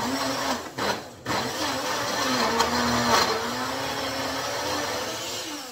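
Small single-serve blender motor running on frozen fruit and greens, its pitch wavering under the load. It cuts out briefly about a second in, starts again, and winds down near the end.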